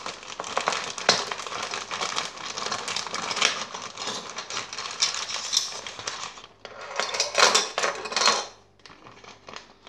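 Plastic zip-lock bag crinkling as metal shavette razors are worked out of it, the razors clinking against each other and onto a table. The dense crackle and clinking is loudest about seven to eight seconds in, then turns quieter near the end.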